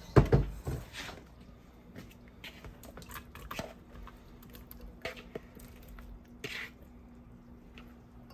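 Spoon stirring chile sauce in a pot: a loud knock right at the start, then scattered light scrapes and clicks of the spoon against the pot, over a faint steady hum.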